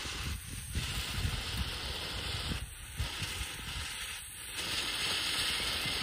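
A ground fountain firework hissing steadily as it sprays sparks, with wind rumbling on the microphone. The hiss dips out briefly three times.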